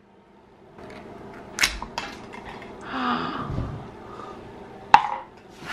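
Small plastic Hatchimals CollEGGtibles egg being pried open by hand: sharp plastic clicks and snaps with handling rustle, two clicks standing out, one about a second and a half in and a louder one near the end.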